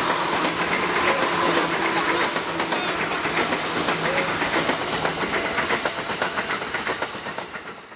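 KRL Jabodetabek electric commuter train passing close by, its wheels clicking rapidly over the rail joints. The sound fades as the last cars go by and cuts off suddenly at the end.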